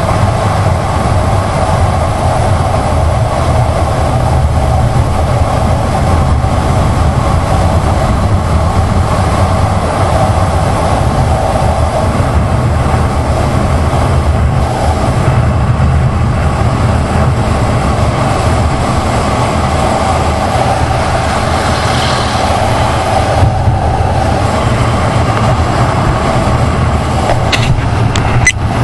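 Kawasaki Ninja 1000SX inline-four motorcycle cruising steadily at speed, its engine note mixed with wind rushing over a bike-mounted action-camera microphone. A few light clicks near the end.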